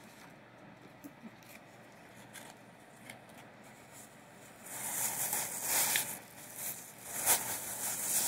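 A few faint clicks, then from about halfway in an irregular run of crinkling and rustling as candy packaging is handled.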